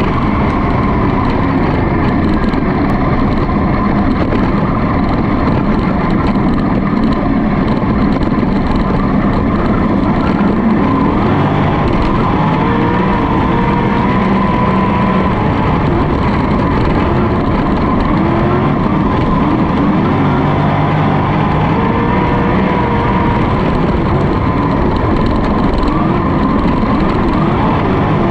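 Winged sprintcar's methanol V8 engine at full race pace, heard on board, its pitch rising and falling again and again as the throttle goes on and off through the turns of a dirt oval.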